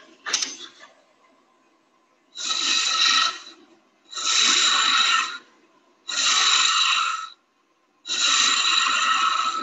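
Something held against wood spinning on a lathe, rubbing four times in rough hissing strokes of about a second each, with a short silence between strokes.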